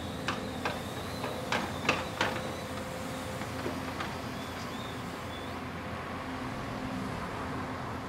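Diesel engine of a Doosan crawler excavator running steadily. Its demolition sorting grab gives a quick run of sharp knocks and clatter in the first couple of seconds, and one more about four seconds in, as it works through brick rubble.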